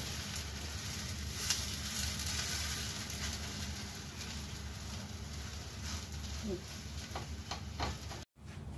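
Dosa sizzling steadily on a hot tawa after being flipped, with a few light clicks of a spatula near the end. The sound cuts out abruptly for a moment just before the end.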